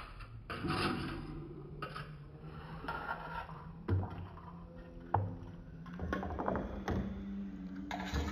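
Forks and spoons scraping and clinking on a metal serving platter during eating, with two sharp clinks about four and five seconds in, over a low steady hum.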